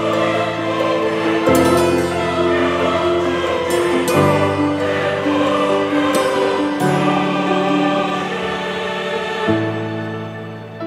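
Background music of slow, sustained chords that change about every two and a half seconds.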